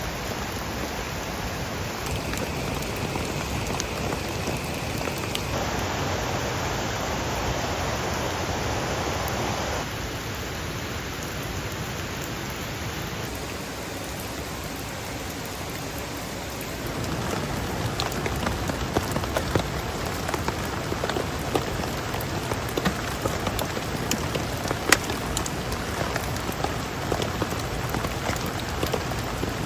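Steady rain falling, with many small drops tapping on a surface; a little past halfway it gets louder and the individual drop taps become more distinct.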